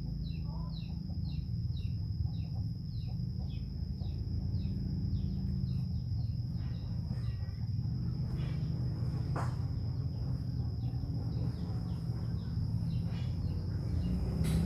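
A bird calling with a short falling chirp about two times a second, fading out about eight seconds in, over a steady high insect drone and a constant low rumble. One sharp click about nine seconds in.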